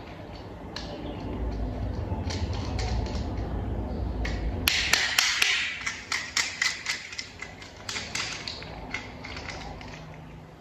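Plastic toy parts clicking and tapping as they are handled and fitted together. About halfway through, a quick run of sharp clicks starts over a hiss and thins out near the end.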